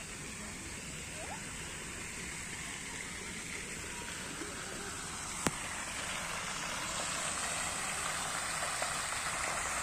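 Fountain water splashing: a steady rushing that grows louder over the second half. One sharp click about halfway through.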